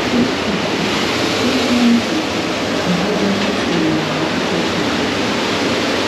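Steady rushing and sloshing of water around a round river-rapids raft as it floats along the ride channel.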